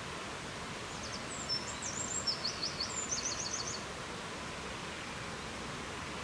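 Steady rain falling, an even hiss. A bird chirps a quick series of high notes from about a second in until about four seconds in.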